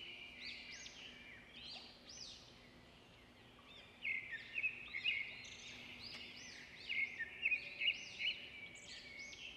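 Faint birdsong ambience: many small birds chirping in quick arching notes over a steady high twitter. It drops out briefly about three seconds in and comes back louder a second later.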